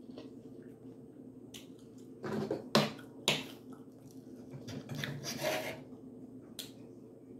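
Knife and fork cutting a steak: rasping strokes of the knife through the meat, with two sharp clicks about half a second apart a little under three seconds in.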